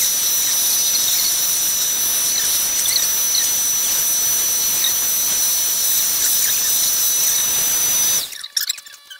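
Vacuum cleaner running with suction through its hose: a steady airy hiss with a thin high whistling whine, which stops suddenly about eight seconds in.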